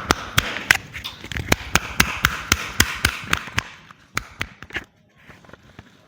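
A quick run of sharp taps, about three a second, over a rustling hiss, dying away about five seconds in.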